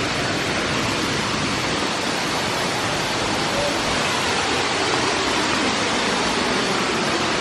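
Waterfall: a steady, even rush of falling water close by.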